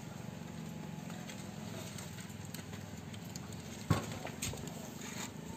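Used engine oil dripping and trickling in thin streams from the drain hole of a Yamaha Sirius's crankcase into a metal drain pan already full of oil. A single sharp knock sounds about four seconds in.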